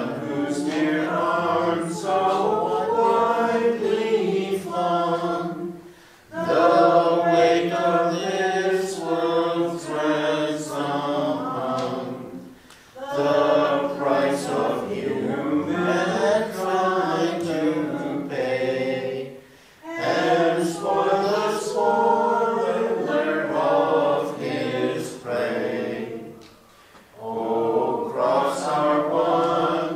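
Church choir singing unaccompanied liturgical chant in phrases of about six or seven seconds, with short breaks between them.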